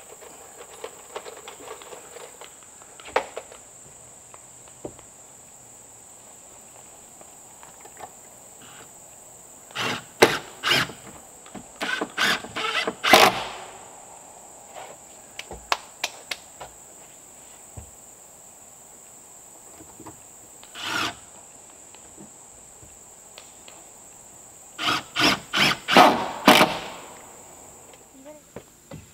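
Hammer driving nails into wooden wall sheathing boards: a few blows in a row, then a pause, then another run, with five quick strikes near the end. A steady high insect drone sounds underneath.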